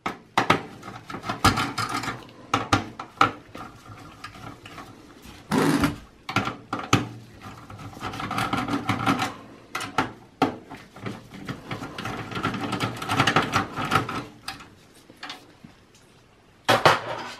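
Irregular clicks, knocks and scraping of metal and plastic as a CPU cooler heatsink fan is worked loose and lifted off a desktop motherboard inside a steel PC case, with a louder clatter near the end.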